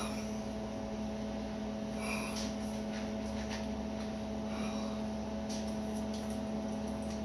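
Steady electrical hum from workshop equipment, with a few faint clicks and rustles.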